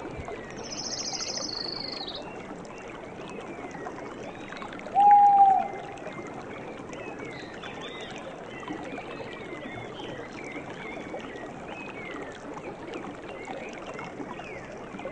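Mountain forest ambience: many small bird chirps over a steady rushing hiss. A high trilled note sounds in the first two seconds, and one loud, clear note lasting under a second stands out about five seconds in.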